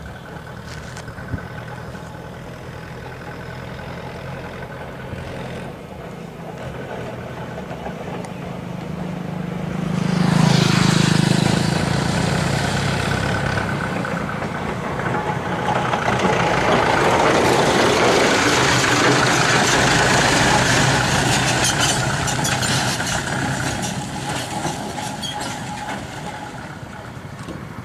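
Motor vehicle engine passing on a dirt road: a steady low hum builds to its loudest about ten seconds in, then a second broad swell of noise comes and fades away.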